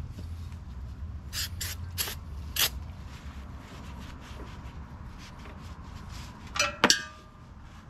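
Aerosol cleaner sprayed onto a tiller's chain and sprockets in four short hissing bursts. Near the end come two sharp metallic clinks with a brief ring.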